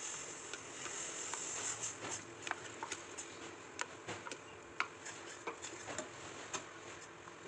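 Cooking sounds in a small kitchen: a steady hiss with scattered light clicks and taps at an irregular pace.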